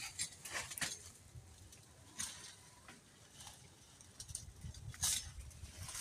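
A few short rustles and crunches, like dry grass and leaves being stepped on or handled, over a faint low rumble.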